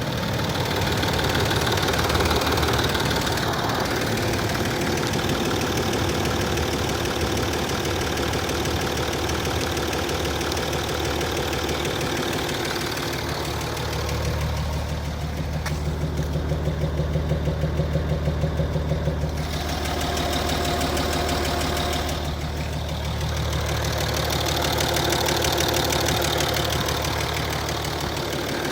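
Land Rover Discovery 3's 2.7 TDV6 twin-turbo V6 diesel idling hot with a knock. The engine sound is steady throughout, with a deeper, evenly pulsing stretch from about halfway to two-thirds through.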